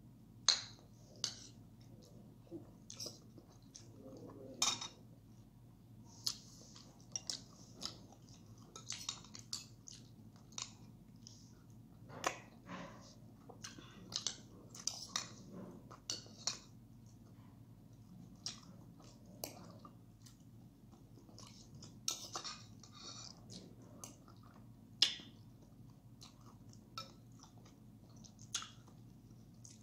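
Close-miked chewing and mouth sounds of a person eating a chicken and oatmeal dish, with many short sharp clicks and smacks scattered throughout.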